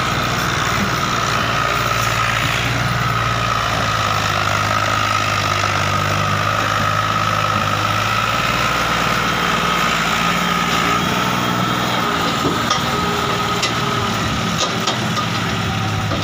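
Ford 4600 tractor engine running steadily under load, pulling a heavily loaded sugarcane trolley, with a steady high-pitched whine alongside it. A few light clicks come near the end.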